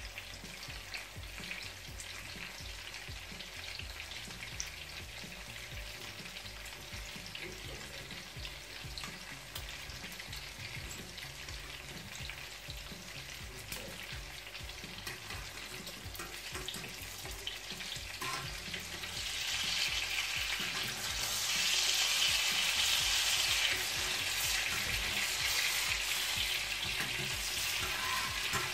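An eggplant omelette topped with minced meat frying in oil in a nonstick pan, browning on the underside. It gives a steady sizzle with scattered small pops, which grows louder about two-thirds of the way in.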